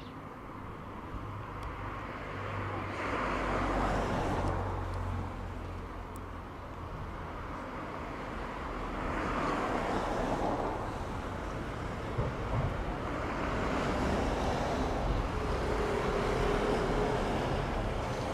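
Class 166 Turbo diesel multiple unit running, a steady low engine rumble with rushing swells that grows louder.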